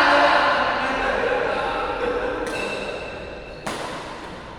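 Players calling and shouting together in a large hall, loudest at the start and dying away over about two seconds. Then come two sharp smacks of badminton rackets hitting the shuttlecock, about a second apart.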